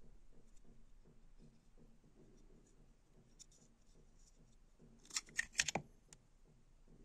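Micro fixed-blade knife being drawn out of its kydex sheath: a quick run of sharp clicks and scrapes about five seconds in, after a few faint handling clicks.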